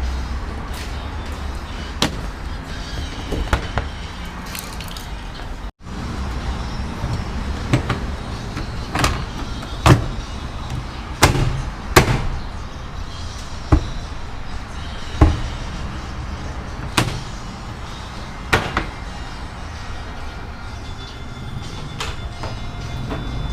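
Irregular sharp knocks and clicks, like hand tools and metal or plastic parts being handled during work on a washing machine, over a low steady hum. The sound drops out for an instant about six seconds in.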